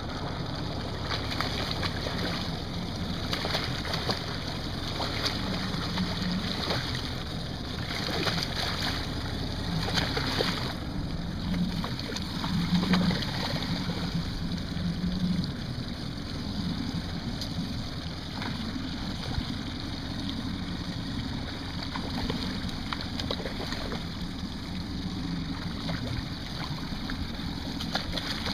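Boat motor running at trolling speed under wind noise, with water splashing as a hooked fish thrashes at the surface beside the boat.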